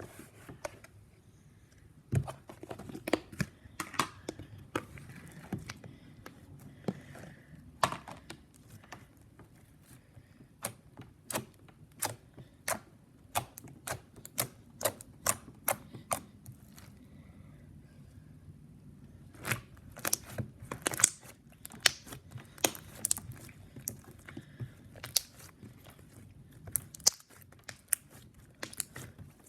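Fluffy slime being squeezed and poked by hand, giving irregular sharp clicks and pops, at times several a second.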